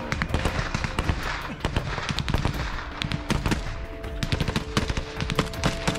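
Small-arms firefight: rifle and machine-gun shots in quick, uneven succession, some louder and some fainter.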